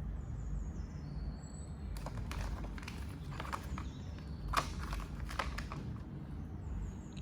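Small clicks, knocks and rustles of items being handled and set into the compartments of a plastic toolbox, in two clusters with the sharpest click a little after the midpoint.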